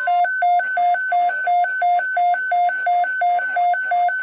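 A NOAA Weather Radio receiver's alert alarm beeping rapidly, about three electronic beeps a second, sounding because an alert such as a severe thunderstorm watch is coming in.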